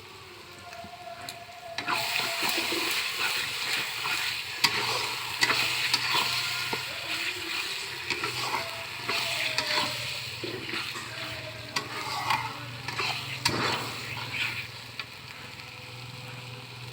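Food sizzling as it fries in a pan, with a spoon stirring and scraping it in uneven clicks; the sizzle starts about two seconds in.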